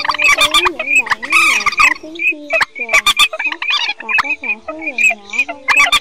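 Bird-lure recording of several waterbird calls laid over one another: waterhen and swamphen calls mixed with teal. Short high notes repeat a few times a second over lower wavering nasal calls, with scattered sharp clicks. It is the kind of looped call track played to draw migrating birds into night nets.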